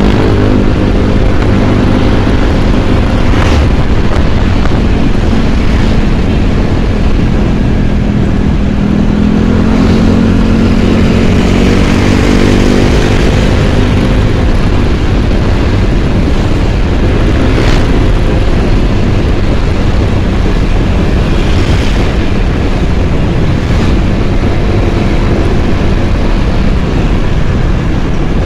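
Yamaha scooter riding along a road with its engine running, under heavy wind and road rumble on the microphone. The engine note swells and rises for a few seconds about a third of the way through.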